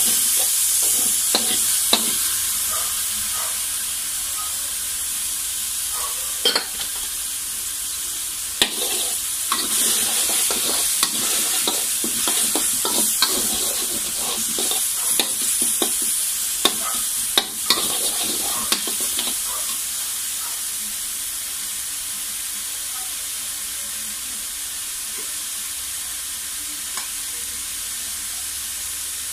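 Chopped onion and chilli sizzling in hot oil in a wok, with a metal spatula scraping and clinking against the pan as it is stirred. The stirring stops about two-thirds of the way through, leaving the steady sizzle.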